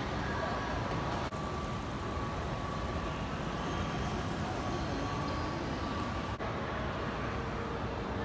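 Steady background din of a large indoor shopping mall atrium, an even wash of noise with a faint steady tone, dipping briefly twice.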